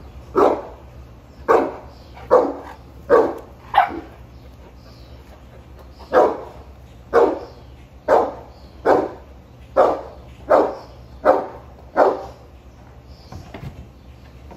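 A Boerboel barking repeatedly: about thirteen short barks in two runs with a pause of about two seconds between them, stopping a couple of seconds before the end.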